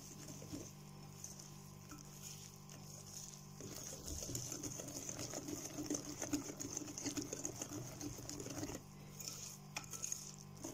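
Wire whisk beating cake batter in a glass bowl: quick, light ticking and swishing of the wires through the batter and against the glass. It grows louder about four seconds in and eases off near the end.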